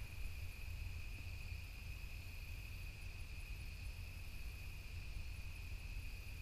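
Steady chorus of crickets, one continuous high trill with no pauses, over a low rumble on the microphone.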